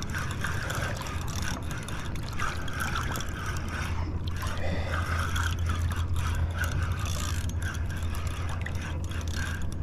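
A spinning reel being cranked steadily as a hooked jack crevalle is reeled in, over water lapping and a steady low wind rumble on the microphone.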